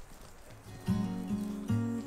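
Background music comes in about a second in: a gentle, chord-based track with a guitar-like sound, the chords struck again every half second or so.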